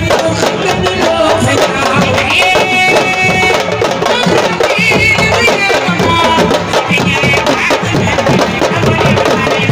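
Music with dense, fast drumming, many sharp strokes a second, and high pitched melodic lines over it in places.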